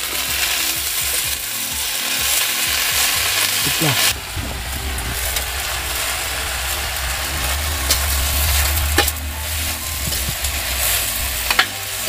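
Cassava leaves and flowers sizzling steadily as they are stir-fried in a pan, with a few sharp clicks of the spatula against the pan in the second half.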